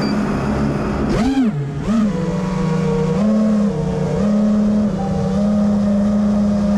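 Brushless motors and 5-inch props of an FPV racing quadcopter (Lumenier 2207 2700kv motors, HQ 5x4.3x3 props) whining. The pitch swoops up and down twice with quick throttle punches in the first two seconds, then holds fairly steady with small shifts. Wind rushes over the onboard camera's microphone.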